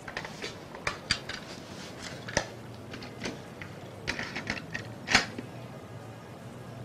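A stereo player on a shop counter is handled and loaded: a string of irregular mechanical clicks and knocks from its buttons and mechanism. The loudest knock comes about five seconds in.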